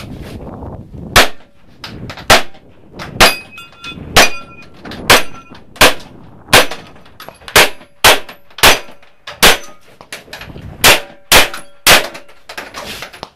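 Rapid gunfire in a shooting-competition stage: about fifteen shots at a steady pace, one every half second to a second. Several are followed by a high metallic ring, typical of steel targets being hit.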